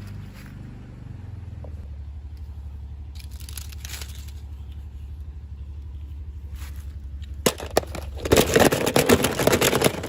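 Handling noise: faint scattered rustles, then loud crackling and crinkling for about two and a half seconds near the end, over a steady low hum.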